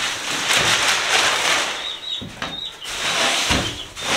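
Loose wood-shaving bedding being tipped out of its bale and spread across a plywood floor: a dry, hissing rustle in several waves. Brief high peeps from chicks come through, mostly in the middle.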